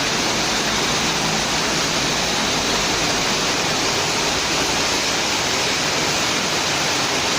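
Steady rushing hiss of a heavy rainstorm.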